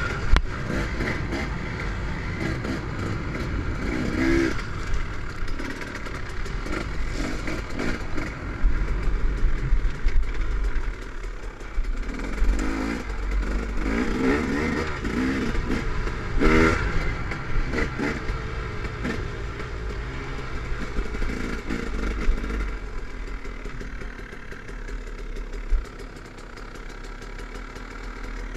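Dirt bike engine revving up and down under changing throttle as the bike is ridden along a gravel trail, heard from on board the bike. It gets quieter over the last few seconds.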